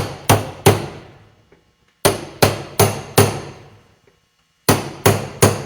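Hammer blows on metal, driving the hydraulic pump's drive gear onto its shaft: three groups of three or four quick, sharp strikes, each ringing briefly.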